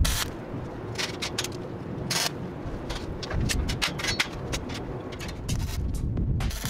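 Scattered sharp clicks, knocks and scrapes of hard objects being handled and set down, several to the second.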